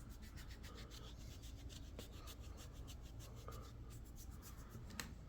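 Faint rubbing of a fist kneading over hair and skin in a head and shoulder massage, with a few soft clicks about two seconds in, again near the middle, and near the end.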